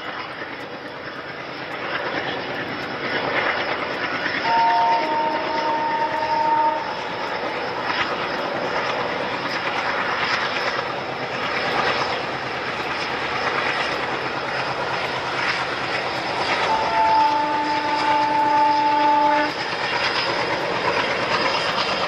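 Passenger train running across a bridge: a steady rumble of wheels on rail with a faint clickety-clack. The locomotive's horn sounds two long blasts of several notes at once, the first about four seconds in and the second about seventeen seconds in.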